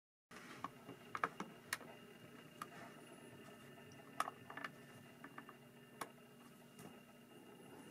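Lego bricks and plates clicking and tapping as they are pressed and handled: an irregular scatter of sharp plastic clicks, the loudest a little over a second in and again around four seconds in, over a faint steady hum.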